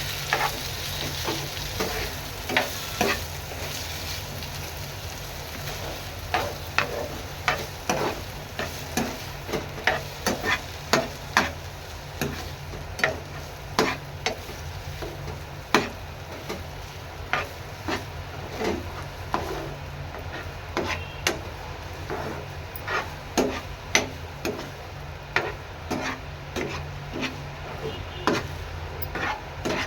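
A spoon or spatula stirring and scraping food in a cooking pan over a sizzle, with irregular strokes about one a second.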